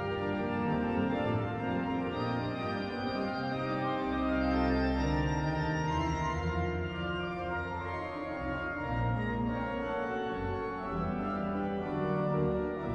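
Organ music accompanying a silent film: held chords over a bass line that changes every second or so.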